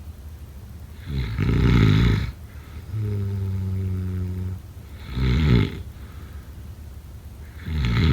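A person snoring: three loud, rattling snores a few seconds apart, with a steady low humming breath between the first two.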